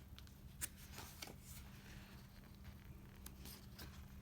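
Faint handling of an album's photobook and paper jacket: a few light clicks and paper rustles, over a steady low hum.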